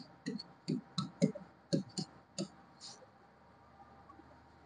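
Marker pen clicking and scraping on a writing board in short, irregular strokes, about two a second, which stop about three seconds in.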